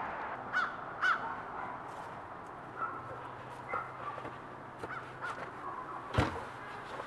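Crow cawing: two loud caws about half a second apart near the start, then fainter calls. About six seconds in, a single sharp wooden knock as a plywood sheet is handled.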